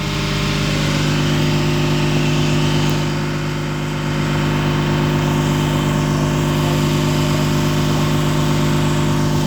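Ship's machinery running with a steady, unchanging drone.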